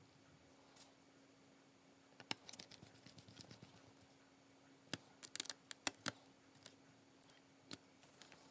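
Precision screwdriver driving a small screw into a laptop's CPU heatsink bracket: faint scattered clicks and light scraping of metal on metal. There is a sharp click about two seconds in and a quick run of clicks around five to six seconds.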